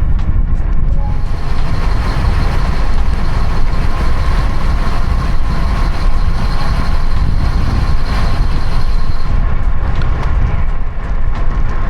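Wind rushing over the microphone of a camera on a moving road bike: a loud, steady low rumble, with a faint high hum from about a second in until near the end.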